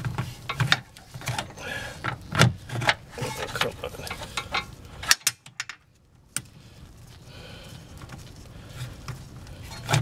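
Small metal clicks and taps of a brake-line fitting and its bolt being fiddled against a brake caliper while trying to start the bolt's thread, which won't catch. The clicks come irregularly, stop briefly a little past halfway, then turn sparse and faint.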